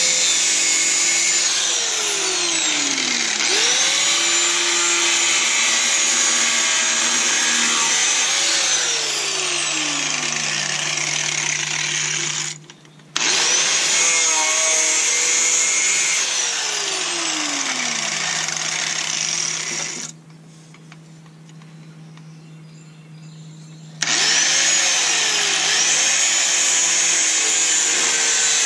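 Angle grinder with a cut-off wheel cutting and trimming rusted sheet steel of a pickup's cab corner and inner rocker, its whine dipping and rising as the wheel bites and lets go. It stops briefly a little before halfway, then pauses for about four seconds later on before spinning up again.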